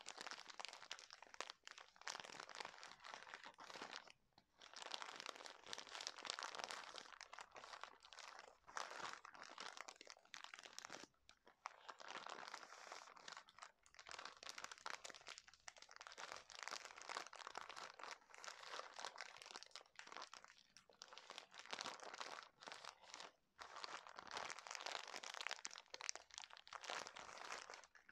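Plastic wrapping of a pack of cotton pads being squeezed and crinkled in the hands, with crackly crunching in bursts of a few seconds separated by short pauses.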